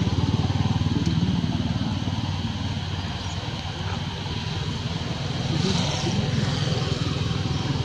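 A small engine running steadily with a low, even pulsing.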